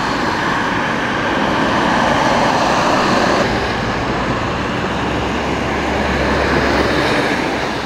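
Steady road traffic: lorries and cars driving past on wet asphalt, their tyres hissing on the wet surface, with a heavier low engine rumble from about five to seven seconds in as a lorry passes close.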